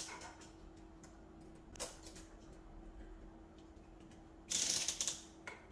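Grow-light hanging rope being pulled through its adjustable rope hanger, giving short rasping zips: a brief one about two seconds in and a longer one near the end.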